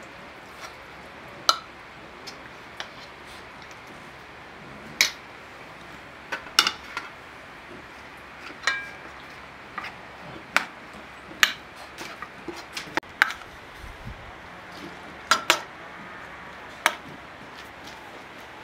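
Enamel plates, a metal serving pan and cutlery clinking and knocking as food is served out. The sounds come as sharp, separate clinks at irregular intervals, and one rings briefly about nine seconds in.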